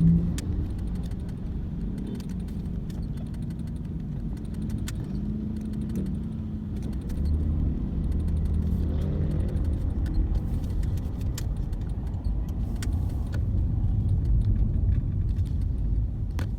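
Car running with a steady low rumble, stronger from about seven seconds in, with scattered light clicks and rattles.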